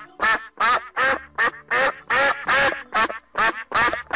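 Duck quacking over and over, a steady run of short, loud quacks at about three a second.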